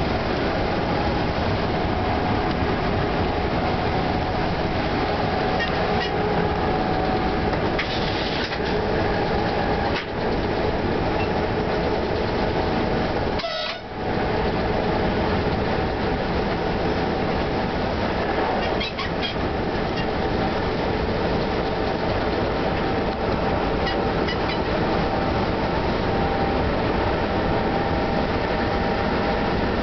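FS E.655 electric locomotive running along the line: a steady rail rumble with a few steady whining tones above it, dipping briefly about a third of the way in.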